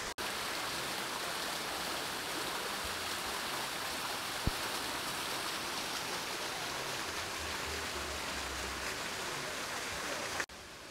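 Steady rushing water, an even hiss, with a brief low bump about halfway through; it cuts off suddenly shortly before the end.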